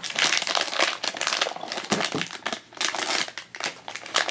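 A foil blind-box bag crinkling and crumpling as hands work it open, an uneven run of sharp rustles.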